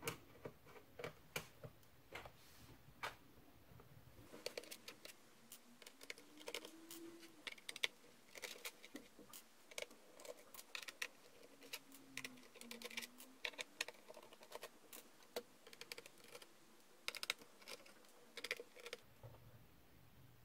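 Irregular light clicks and ticks of a small screwdriver backing the screws out of an Asus F550Z laptop's plastic bottom case, with small taps as the loose screws are set down on a wooden desk.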